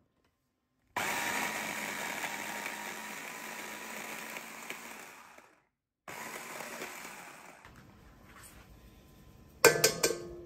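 Electric mini food chopper running, its blades chopping yuzu with a steady motor whine. It stops after about four and a half seconds, then runs more quietly for a second or so. Near the end an egg is knocked a few times on the rim of a stainless steel bowl: sharp taps that leave a ringing tone.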